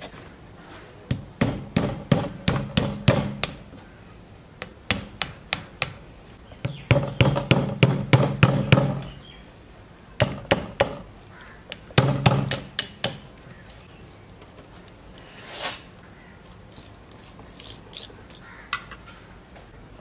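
Cleaver striking the bent wire hooks that clamp a wire-mesh fish grill shut, metal knocking on metal against the counter. Quick runs of sharp knocks, several a second, in bursts with short pauses, then a few fainter taps near the end.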